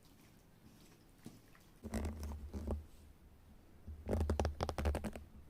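Hands mixing chicken pieces in a wet ground-spice marinade: two bursts of squelching and rapid clicking with low knocks, about two seconds in and again about four seconds in.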